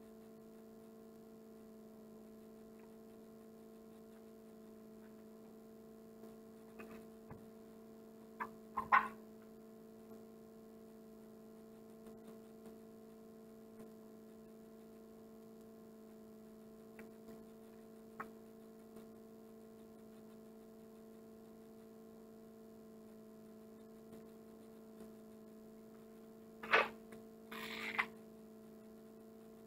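Steady electrical hum made of a few held tones, with occasional soft taps and one sharper knock. Near the end comes a sharp click, then a brief scratch of a dry-erase marker on a whiteboard.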